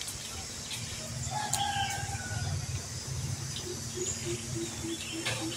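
Outdoor bird calls over a steady low rumble: one short call about a second in, then a quick series of low repeated notes, about three or four a second, in the second half.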